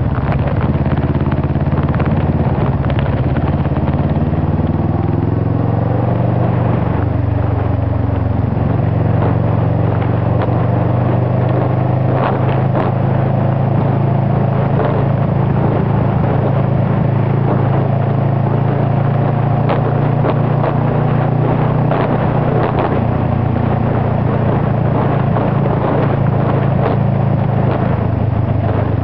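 Kawasaki ER-6n's 649 cc parallel-twin engine running at moderate town-riding revs, heard from the rider's seat. Its pitch climbs as the bike picks up speed, drops about six to seven seconds in, then holds steady.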